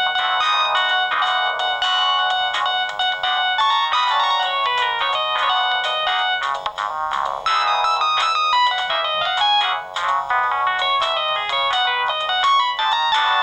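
Samsung SGH-C130 mobile phone playing one of its built-in ringtones: a fast melody of short synthesized notes, several sounding at once, thin and with almost no bass.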